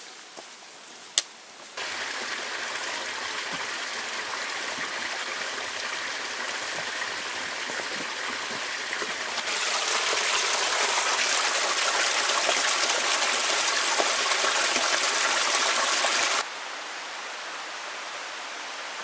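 Small mountain creek cascading over mossy boulders: a steady rush of water that becomes louder and brighter about halfway through, then drops abruptly to a softer, distant rush near the end. It is preceded in the first two seconds by a single sharp click.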